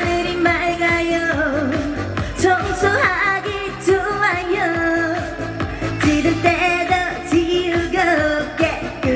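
A woman singing a Korean trot-style song live over an amplified backing track with a steady beat.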